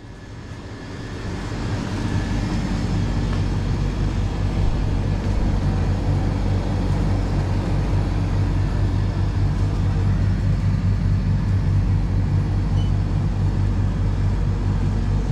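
Steady low hum and whir of refrigerated display cabinets, fading in over the first couple of seconds and then holding level.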